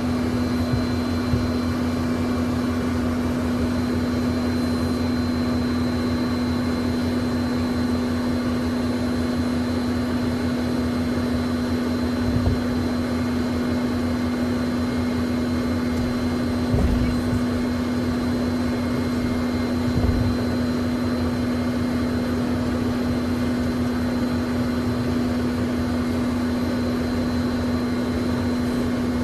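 Inside a Learjet cabin while taxiing: the jet engines run with a steady hum holding one low tone and a thin high whine over a hiss of air. Three brief low thumps come through partway along.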